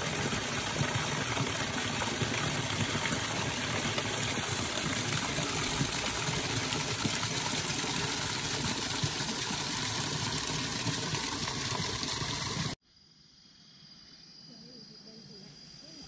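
Small forest stream rushing over rocks, a steady loud rush of water that cuts off suddenly about three seconds before the end, leaving only a faint background.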